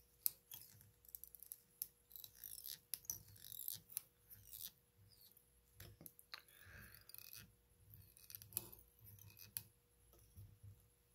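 Faint, irregular clicks and scratches of fly-tying handwork at the vise: thread being wrapped and pulled over foam on a hook.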